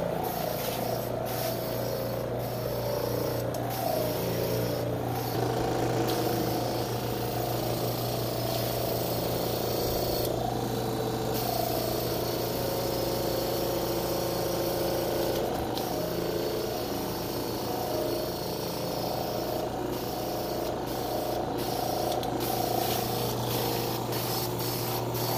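Electric carpet pre-spray sprayer running with a steady hum while pre-treatment is sprayed onto carpet stains.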